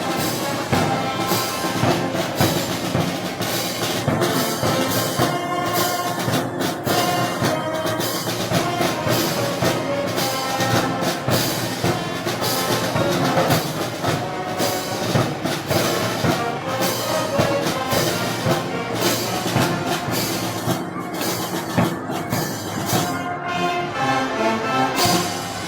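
A wind band with brass and percussion playing Moros y Cristianos festival music.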